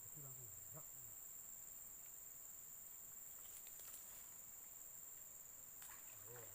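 Steady high-pitched drone of forest insects, with a few faint clicks about halfway through and near the end.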